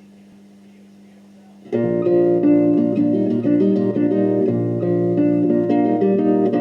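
A faint steady low hum, then about two seconds in a guitar starts playing a song's intro in evenly paced picked notes and chords.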